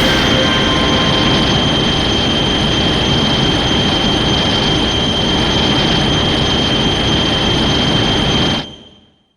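Sustained character sound effect: a loud, steady rushing noise with a high whistling tone running through it, dying away near the end.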